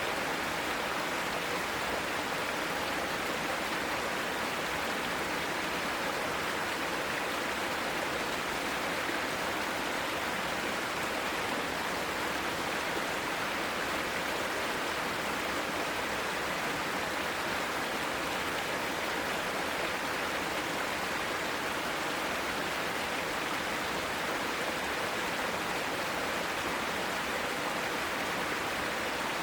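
Mountain stream rushing over rocks in a steady, unbroken flow.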